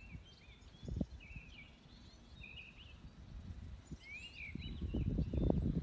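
Small birds chirping and singing in short, swooping notes. Under them runs a low, gusty rumble that jumps briefly about a second in and builds to its loudest near the end.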